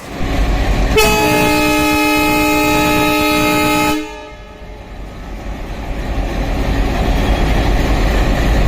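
Horn of twin Indian Railways WDM3D diesel locomotives sounding one long blast of several steady tones at once for about three seconds, over the low rumble of the diesel engines. After the horn stops, the engine rumble grows louder as the locomotives come closer.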